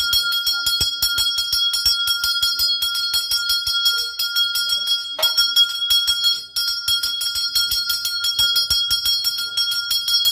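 Puja hand bell rung rapidly and continuously, its clapper striking several times a second with a steady ringing tone, as it is rung through the aarti offering.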